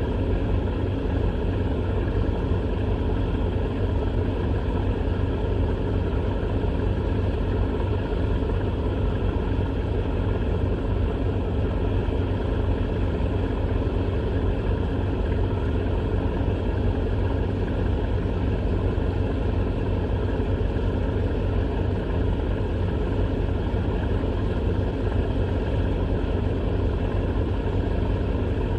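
Steady, unbroken low engine-like drone with a deep rumble and a steady hum over it.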